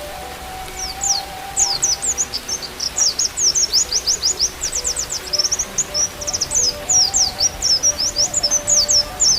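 White-eye (pleci) song: a fast, continuous twitter of high, downslurred chirps, starting about a second in. Under it run a soft bamboo flute (seruling) melody of long held notes and a steady hiss of rain.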